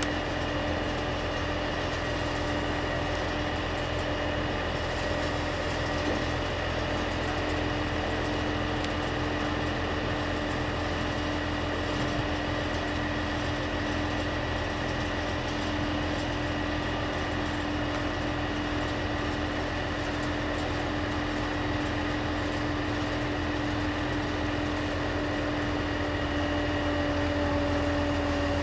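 Steady drone of running engines with a constant hum and whine, heard from inside a car.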